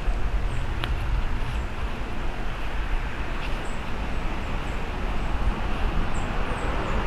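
Breeze blowing over the Comica V30 Pro external microphone, a steady rumbling wind noise with a rushing hiss over it, while the breeze is medium. A few faint high chirps come in about halfway through.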